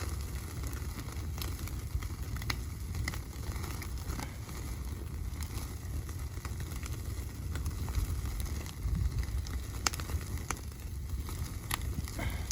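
Wood fire crackling, with scattered sharp pops at irregular intervals over a steady low rumble.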